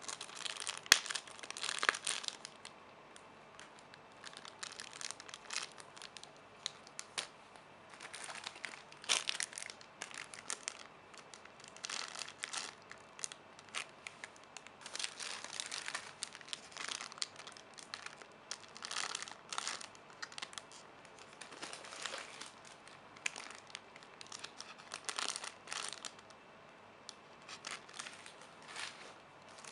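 Plastic packaging crinkling in irregular bursts as it is handled, with one sharp click about a second in.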